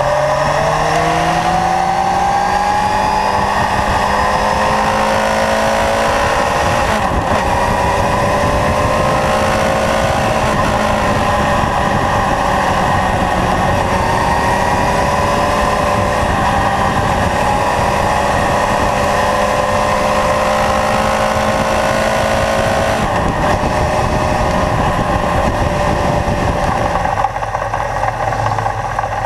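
Kawasaki Zephyr's air-cooled inline-four engine pulling at road speed, heard from a fork-mounted camera with steady wind rush over it. Its pitch rises as it accelerates at the start, then holds fairly steady. Near the end the sound cuts abruptly to a quieter, lower engine sound.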